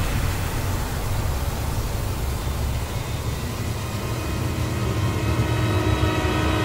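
Rotating steel trommel drum of a sand washing plant turning, with wet sand and water tumbling through it: a steady, deep rumble under a wash of noise.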